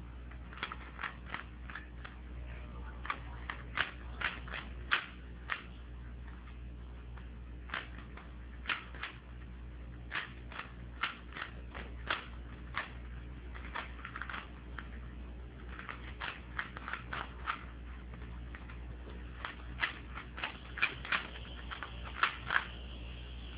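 Rubik's cube being solved by hand: irregular runs of quick, sharp plastic clicks as its layers are turned, over a steady low hum.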